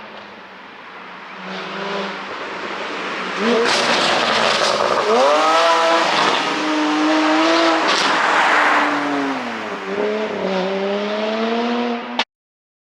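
Porsche 718 GTS 4.0's naturally aspirated flat-six with an iPE exhaust, accelerating hard while driving: the engine note climbs and dips repeatedly as it runs through the revs and gears. A few sharp exhaust cracks come from its pop-tuned ECU, and the sound cuts off suddenly near the end.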